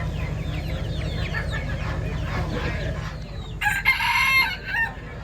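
Caged chickens clucking and calling, with a rooster crowing loudly once for about a second near the end, over a steady low hum.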